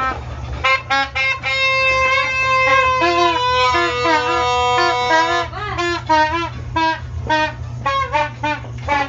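Horn blowing: a few short toots, then one long steady blast of about four seconds, then shorter wavering notes.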